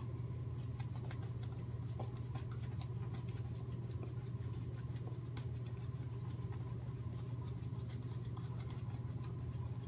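Shaving brush lathering soap onto the face and neck: faint, soft scratchy brushing strokes over a steady low hum, which is the loudest sound.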